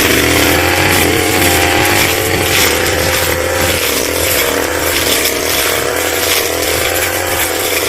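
Two-stroke brush cutter engine running at high revs, its pitch wavering slightly.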